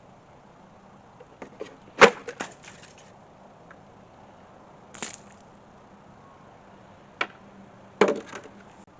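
A handful of separate sharp impacts with small clicks between them. The loudest comes about two seconds in, with others about five seconds in and twice near the end.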